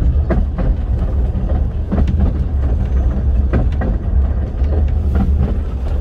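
Narrow-gauge railway carriage running along the track, heard from inside: a steady low rumble with irregular clicks and knocks from the wheels and running gear.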